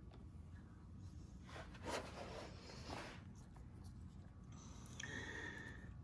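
Faint rustling and scratching of hands working a bundle of thin wires and a small plastic connector, with a couple of brief scratchy sounds about two and three seconds in.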